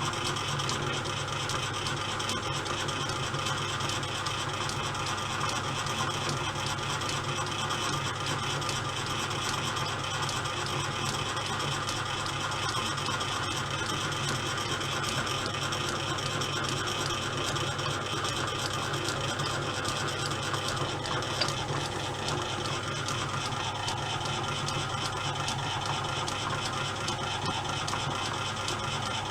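Pittler C3 lathe from around 1895 running steadily under power, its gear train turning with a dense whirr. The powered ball-turning feed is engaged. A single light click comes about two-thirds of the way through.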